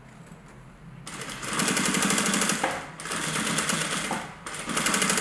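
Sewing machine stitching fast in three runs separated by brief pauses, starting about a second in, while top-stitching a folded-over fabric edge.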